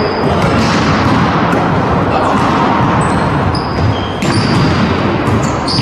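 Volleyball rally on a wooden indoor court: the ball being struck, with a sharp hit about four seconds in and another near the end, sneakers giving short high squeaks on the floor, over a loud, echoing hall din.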